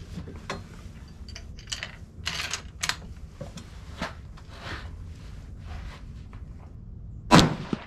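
Small clicks and rustles of a shooter handling a rifle at the bench, then about seven seconds in a single loud 6.5 Creedmoor rifle shot that rings out briefly.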